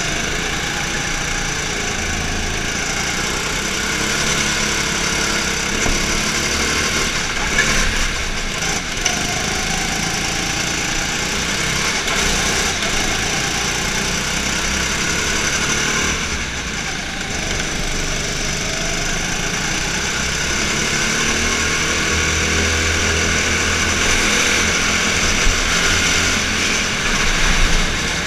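Go-kart engine running hard, heard from on board the kart, its pitch rising and falling as the driver lifts and accelerates through the corners.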